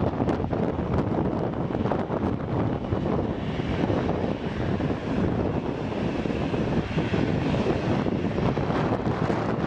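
Ryanair Boeing 737-800's CFM56 jet engines running at taxi power as the airliner rolls along the taxiway, a steady jet rumble with a faint higher whine rising a few seconds in; wind buffets the microphone.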